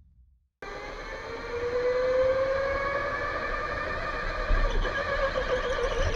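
Electric go-kart motor whining, cutting in suddenly about half a second in; its pitch climbs slowly as the kart speeds up, then wavers up and down near the end, with several higher whining tones over it.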